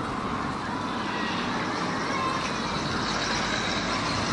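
Steady vehicle and street-traffic noise around a historic tram, with a faint steady whine above it.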